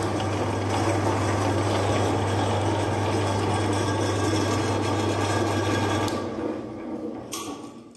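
Electric meat grinder's motor and auger running empty with a steady hum, then switched off about six seconds in and spinning down to a stop, with a single click near the end.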